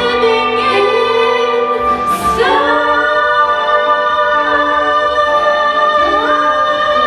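Voices singing a musical-theatre number with accompaniment, sliding up about two and a half seconds in into a long held note. Another sung line slides up to join it near the end, like the close of the song.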